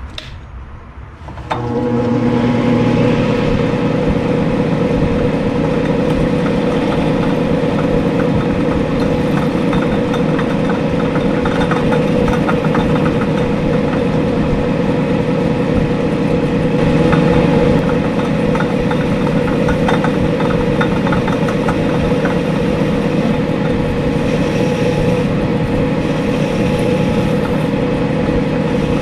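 Small metal lathe motor starting up about a second and a half in, then running steadily with a constant hum.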